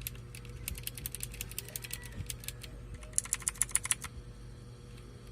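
Keys of a K28 mechanical keyboard with clicky blue switches being typed, each press a sharp click. A fast run of louder keystrokes comes about three seconds in and stops about a second later. After a pause, a few more presses come near the end.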